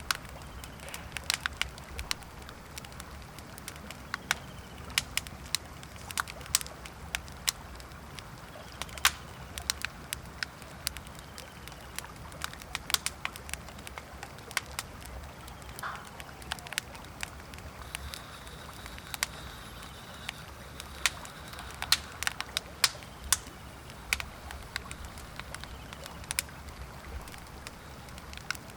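Wood campfire crackling, with irregular sharp pops and snaps, over a low steady rush of river water.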